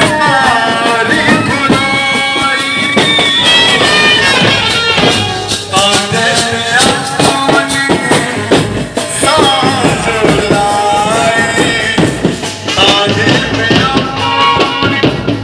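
Brass band music: trumpets playing a melody over drums and rattling percussion.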